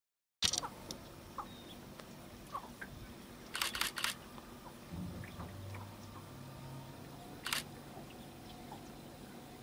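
Camera shutter clicks: a quick run of three a little after three and a half seconds in, and a single click near the end, over a low background hiss with a few faint short bird chirps.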